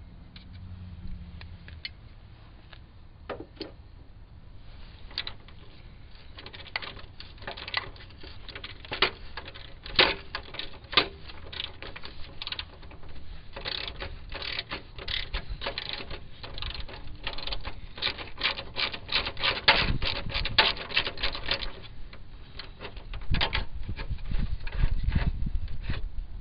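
Hand ratchet with a 15 mm socket on an extension clicking in quick, irregular runs as a rusty bolt is turned out of a Jeep Grand Cherokee ZJ's front end, with a few louder knocks along the way. A low rumble of handling comes in near the end.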